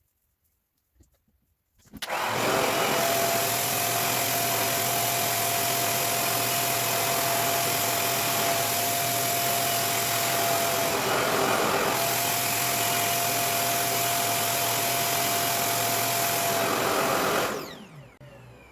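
Revair reverse hair dryer, a suction blower, switched on about two seconds in and running steadily with a loud rushing whoosh and a steady whine. The whine drops out briefly about eleven seconds in, and the dryer winds down near the end.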